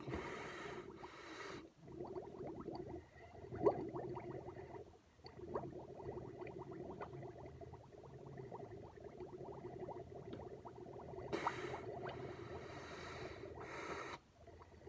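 Steady gurgling of air blown through a drinking straw into a glass of milk. Quick sharp inhales through the nose break in twice near the start and a few times near the end, while the lips stay on the straw.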